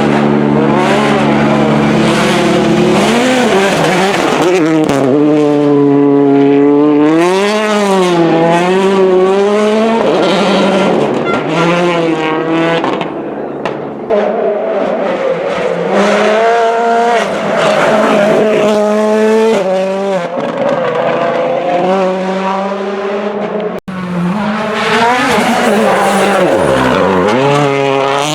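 Rally car engines revving hard, the pitch repeatedly climbing and dropping with gear changes and lifts off the throttle. The sound breaks off for an instant about 24 seconds in.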